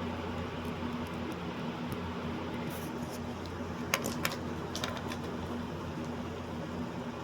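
Steady low hum with background hiss, broken by a few sharp clicks around four to five seconds in.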